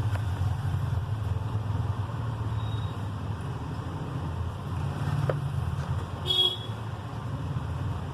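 Steady low background rumble, with a short, high-pitched toot about six seconds in.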